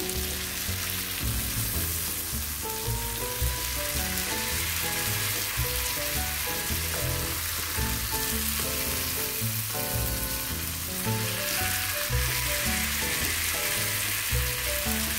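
Marinated chicken pieces sizzling steadily in hot mustard oil in a frying pan on full flame, turned over with a spatula about halfway through. Soft background music plays along.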